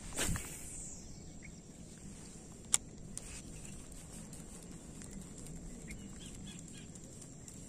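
A spinning rod swung through a cast, with a short swish at the start, then a single sharp click about three seconds in. A steady high insect drone and faint bird chirps run behind it.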